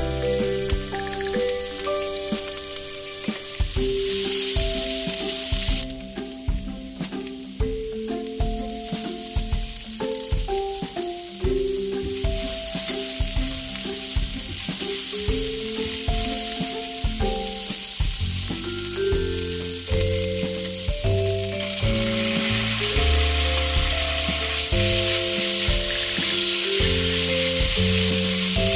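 Food sizzling in hot oil as it is stir-fried, with stretches where the sizzle grows louder, under a background music melody.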